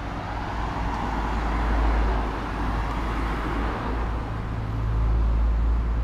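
Road traffic: cars driving along the road below, a steady hiss of tyres and engines over a low rumble. It swells about two seconds in and again near the end as cars pass.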